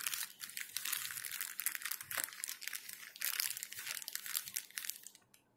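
Plastic packaging crinkling in the hands as small puncture-repair parts are handled, a dense crackle that stops about five seconds in.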